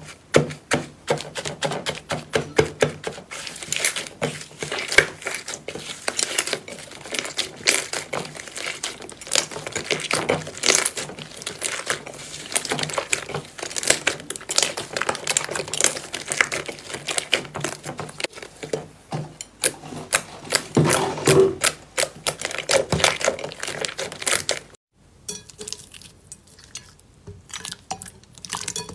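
Thick green slime dotted with foam beads being squeezed and pressed by hands in a glass dish: a dense run of sticky pops, clicks and crackles. Near the end it turns quieter and sparser as a clear slime is pressed.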